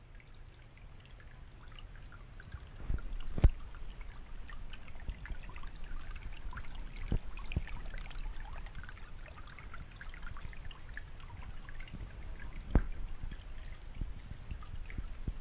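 Small trickle of seeping water running and dripping into a shallow rock pool, a steady patter of tiny splashes. Two sharp knocks stand out, one a few seconds in and one near the end.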